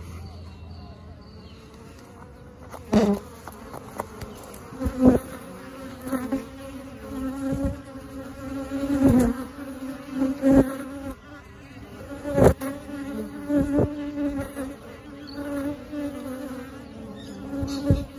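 Honey bees from a swarm in a wall buzzing steadily around the microphone, with a series of louder, closer buzzes every second or two as individual bees fly right past or bump against it.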